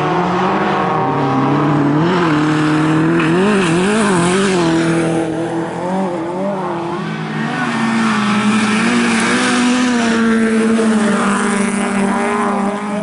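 Bilcross race car engines revving hard, their pitch rising and falling with throttle and gear changes, over the noise of tyres on loose dirt.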